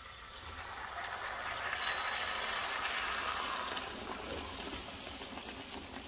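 Blended green tomatillo and chile salsa being poured into a hot skillet of browned pork chops, splashing and sizzling as it hits the pan. The sound builds over the first couple of seconds and then eases off.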